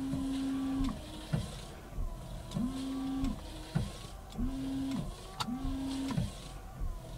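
Rear liftgate wiper motor of a 2010 Chevy Traverse, heard from inside the cabin, whirring in repeated strokes as the rear wiper runs. Each whir holds steady, winds down and spins back up about every second and a half, with sharp clicks between strokes.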